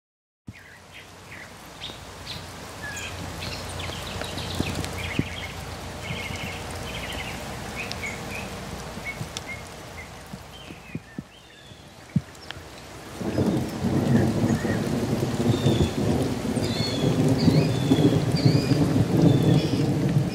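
Birds chirping over a low rumble, which grows much louder about two-thirds of the way through.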